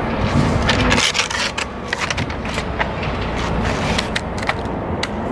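Scattered knocks and clatter of metal roof shingle panels being handled and tapped into place, over a steady low rumble.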